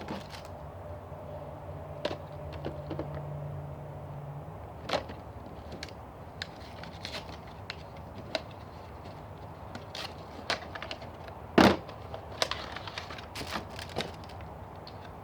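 HeroClix booster pack and plastic figures being handled and unpacked: scattered clicks, crinkles and small knocks, the loudest a sharp knock about two-thirds of the way through.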